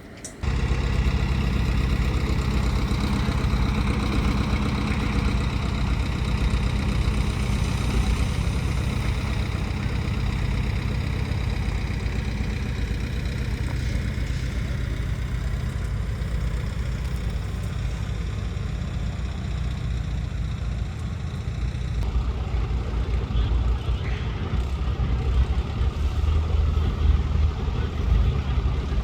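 Engine of heavy construction machinery running steadily with a constant low hum, starting suddenly just after the beginning.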